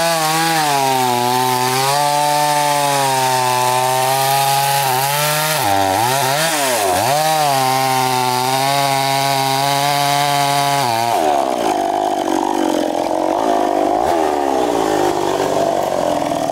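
Two-stroke chainsaw cutting through a felled albasia log at high revs, its engine note dipping under load around six to seven seconds and then recovering. About eleven seconds in, the steady note breaks off into a rougher, less even engine sound.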